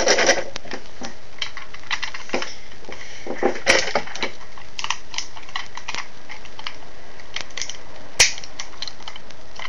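Hard plastic toy pieces clicking and knocking as they are handled and moved on a wooden tabletop, in scattered taps with a cluster about three and a half seconds in and a sharper click about eight seconds in, over a steady hiss.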